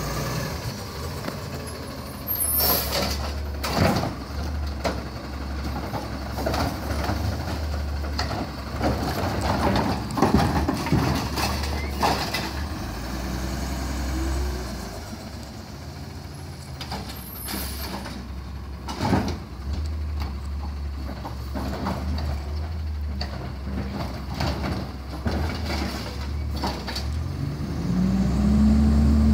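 Automated side-loader garbage truck running at the curb, with scattered knocks and clanks and two short air-brake hisses. Near the end the engine note rises and grows louder as the truck pulls away.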